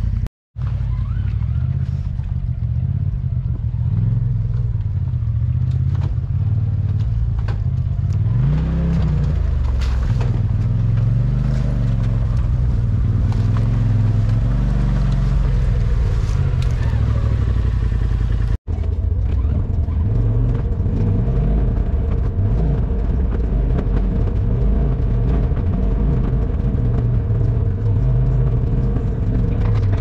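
Polaris Pro XP side-by-side engine running on a trail, a steady rumble with revs rising and falling several times through the middle. The sound drops out completely twice for an instant, near the start and about two-thirds of the way through.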